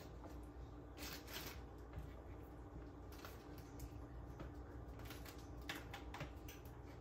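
Faint, scattered light clicks and taps of a fork against a small plastic cup and bowl as pieces of cut fruit are moved into the cup, with a brief plastic rustle about a second in.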